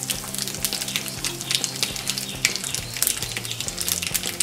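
Mustard seeds and sesame seeds frying in hot oil for a tadka, sizzling steadily with many small sharp crackles and pops.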